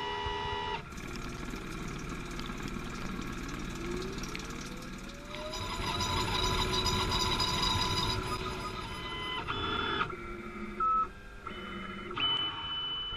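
DGSHAPE DWX-42W wet dental milling machine grinding a dental block under coolant spray: a whining spindle and motors over the hiss of the water jets, the pitch shifting as the machine moves. A rising whine about four seconds in, a louder stretch after that, and a short loud tone near the eleven-second mark.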